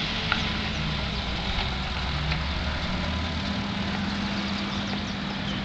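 1945 Ford 2N tractor's four-cylinder flathead engine running steadily as the tractor drives up the lane.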